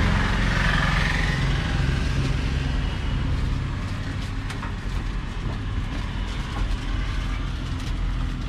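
Road traffic rumbling past, with one vehicle loudest in the first second or two and then fading into a steady low rumble. A few light clicks sound later on.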